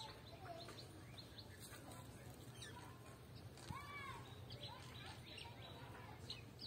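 Faint small birds chirping in short, quick calls, with one longer rising-and-falling call about four seconds in, over a steady low hum.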